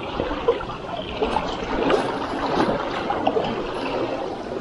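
Sea water lapping and splashing among shore rocks: a steady watery wash with small irregular splashes.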